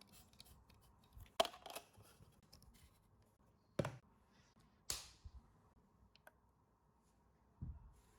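A handful of sharp, separate clicks at irregular intervals a second or more apart, with faint handling noise in between.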